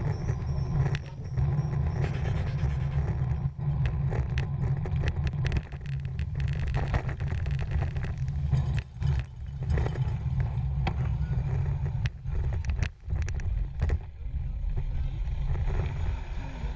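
Wind buffeting a bicycle-mounted action camera's microphone while riding, a steady low rumble, with scattered clicks and rattles from the bike as it rolls along.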